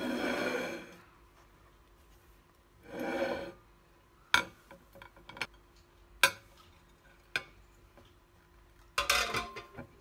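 A glass serving plate scraping across a worktop, twice, then several sharp clinks and knocks as a baked bun is set down on it, with more rubbing near the end.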